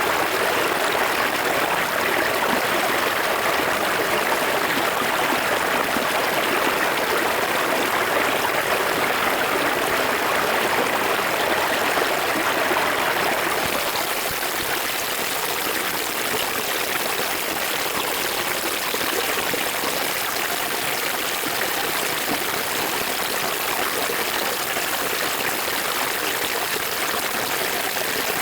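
A river heard close up, water running and splashing steadily. About halfway through the sound shifts a little, slightly quieter and thinner.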